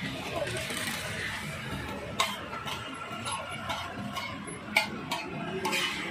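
Metal spatula clinking against a flat iron griddle: a series of sharp, separate clinks, roughly two a second, starting about two seconds in, over a steady background hum.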